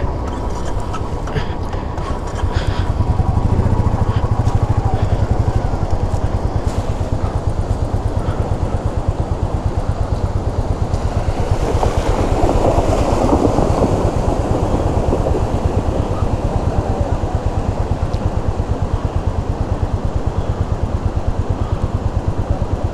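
Royal Enfield Meteor 350's single-cylinder engine running with a steady rapid thump. About twelve seconds in, a rushing splash rises and fades for a few seconds as an SUV's wheels churn through the water beside the bike.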